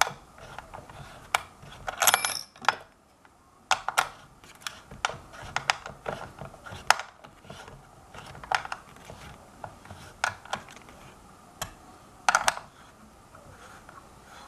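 Metal parts and a hand tool clicking and clinking as the clamp over a hoverboard wheel motor's axle is fitted and its screws are tightened. Sharp, irregular clicks run throughout, with a louder ringing metallic clatter about two seconds in and another near the end.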